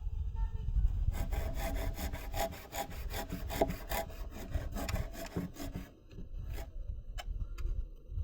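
Wood being sawn by hand with quick, even strokes, stopping about six seconds in, followed by a few separate clicks.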